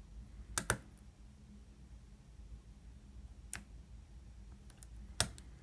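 Sharp clicks of a lock pick working the pins of a Master Lock bike lock's pin-tumbler cylinder: a quick double click about half a second in, then single clicks about three and five seconds in.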